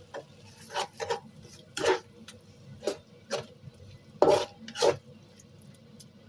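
A cooking utensil stirring sauce in a pan, scraping and knocking against the metal in about seven separate strokes, the loudest pair near the end.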